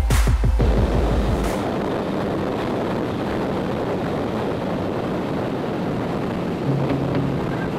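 Yamaha YZF1000R Thunderace motorcycle riding at speed: a steady rush of wind noise over the microphone with the engine running underneath. Bass-heavy background music is there at the start, drops out about a second and a half in, and comes back with steady notes near the end.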